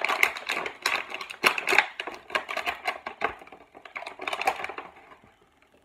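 Thin clear plastic packaging bag crinkling and crackling in a dense run of clicks as it is handled. It dies away near the end.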